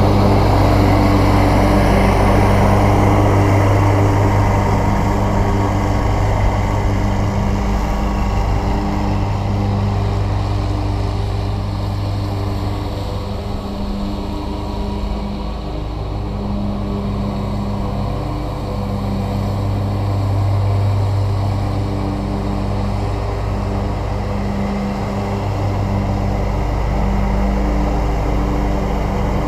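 Scag Cheetah zero-turn riding mower running steadily while cutting grass, a continuous engine hum. It is loudest while the mower is close, dips a little in the middle as it circles away, and grows louder again near the end.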